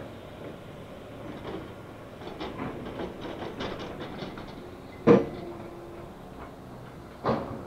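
Demolition machinery working on a building: a run of metal clanks and rattles, then two loud bangs about two seconds apart near the end, the first leaving a brief metallic ring.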